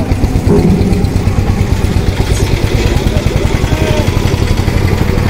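Ferry engine running with a steady, fast throb.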